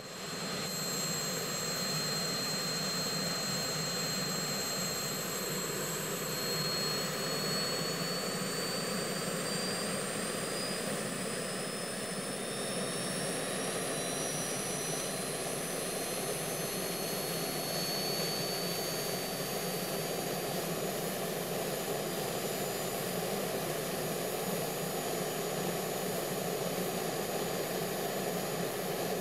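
Jet turbine engine sound effect: a steady rushing run with thin high whines that rise slowly in pitch through the middle, as if the turbine were spooling up.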